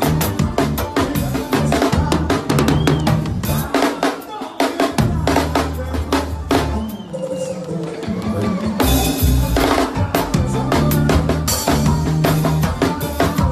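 Drum kit played live over a forró band recording: rapid kick-drum pedal work with snare and rimshots on top of bass and keyboard. The bass drops out for about a second near the middle.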